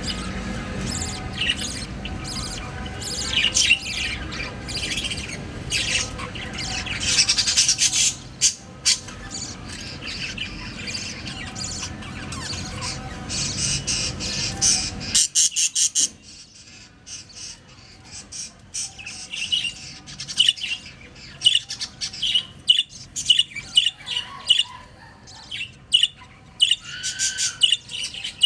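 Parrot squawking and chirping over and over in short, sharp calls. A steady background noise runs under the first half and stops about halfway through; after that, rapid short calls come about once or twice a second.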